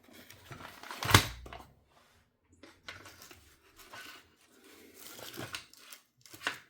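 Hard RC car parts being handled and fitted together on a workbench: one solid knock about a second in, then light clicks and rustling.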